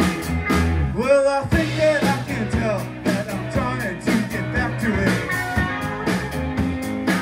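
Live rock band playing, with electric guitars, bass and drums keeping a steady beat. The low end drops out briefly about a second in, then the full band comes back in.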